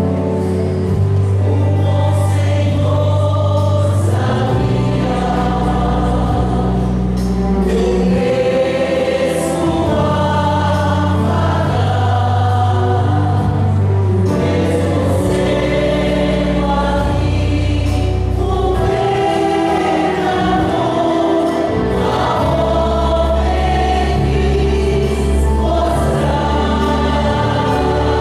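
Mixed church choir of men and women singing a hymn together, over sustained low bass notes of an accompaniment that change every few seconds.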